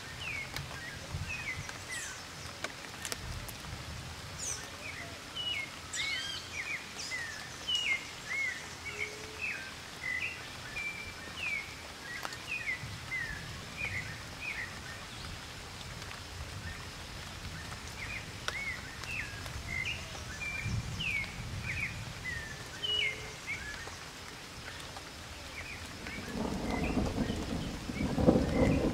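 Many short, high chirping calls, roughly two a second, over a steady rustling hiss; a louder low rumble comes in near the end.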